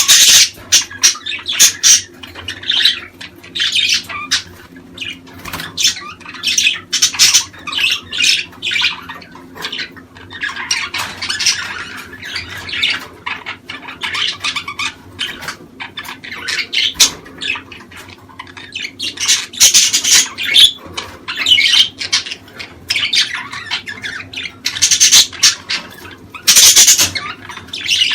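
Budgerigars chattering: rapid chirps and harsh squawks in repeated bursts.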